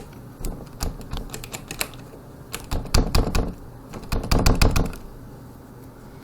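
Interior privacy doorknob lock rattling and clicking as its centre release pin is probed with a stripped Q-tip stick: scattered clicks, then two quick runs of rattling clicks about a second apart.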